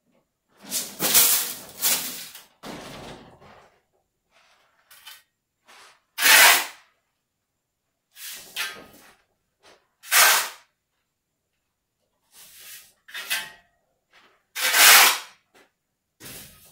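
Sand being sifted through a hanging round wire-mesh sieve. It comes as separate rasping bursts, some as the sieve is shaken and some as shovelfuls of sand are tipped in, with short silences between.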